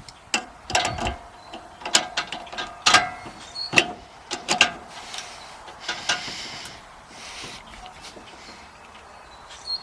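Channel-lock pliers clicking and scraping on a threaded fitting as it is screwed down tight on the hose reel's swivel, with sharp clicks about once a second, each as the pliers take a new grip. About five seconds in come a couple of seconds of softer scraping.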